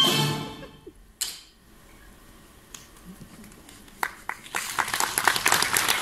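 Dance music with tambourine stops within the first second, followed by a few scattered claps. About four and a half seconds in, the audience breaks into steady applause.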